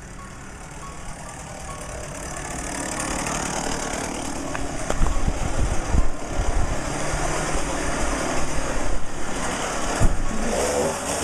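Gasoline chainsaw engine running, growing louder over the first few seconds and then running loudly with brief surges.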